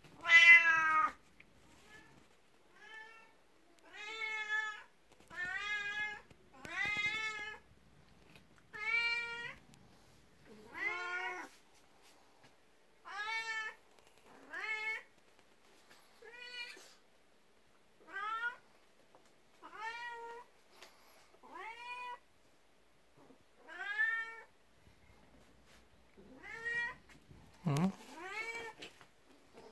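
A 12-year-old black house cat meowing over and over, about one call a second, the first call the loudest, with a lower, drawn-out wavering call near the end. It is meowing for attention at a person's feet, jealous of the attention given to an older cat.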